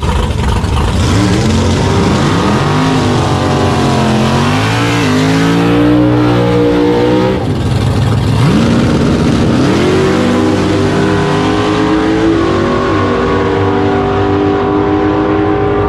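Drag car's V8 engine revving up and down in loud bursts at the starting line, then, about halfway through, launching hard with its pitch climbing steeply and holding high as the car runs down the strip, with a brief dip in pitch near the end.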